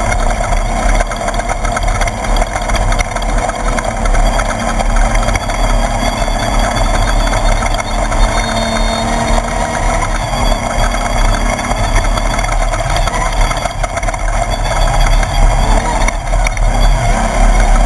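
Onboard sound of a Class 1/2-1600 desert race buggy under way: its air-cooled VW engine running with loud, constant rattling and knocking of the chassis over rough ground, over a heavy low rumble.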